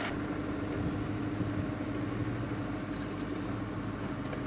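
Old fire truck's engine idling with a steady low hum.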